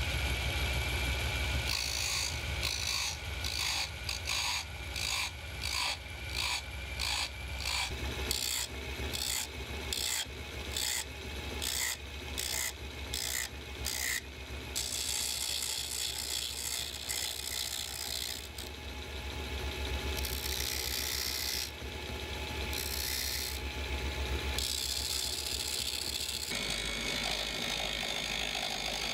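A chisel scraping and cutting a spinning beech rod on a Bosch Combi wood lathe, over the steady hum of its drill motor. For the first half the scraping comes in regular strokes about twice a second, then it turns to a steadier scrape.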